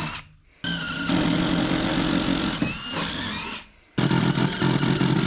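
Power drill boring holes through wooden wall framing for electrical cable, in two runs: the first starts about half a second in and stops near 4 seconds, the second starts right after.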